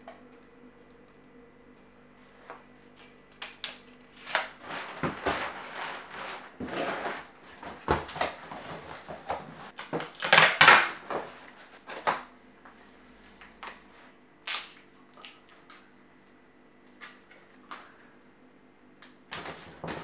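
A cardboard shipping box being handled and sealed: irregular scrapes, rustles and knocks of cardboard and tape, loudest about halfway through, then a few scattered clicks.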